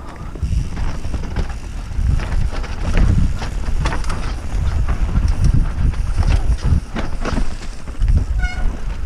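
Mountain bike descending a rough forest trail, heard from the rider's helmet: a steady low rumble of wind on the microphone and tyres on dirt, with frequent rattles and knocks as the bike hits roots and stones. A short high squeal sounds near the end.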